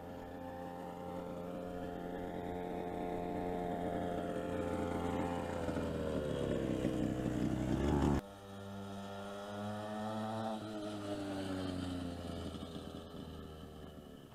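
50cc two-stroke minimoto engine running as the bike is ridden, getting louder with its pitch dropping over the first eight seconds. It then cuts suddenly to a quieter, more distant engine whose pitch falls and fades away near the end.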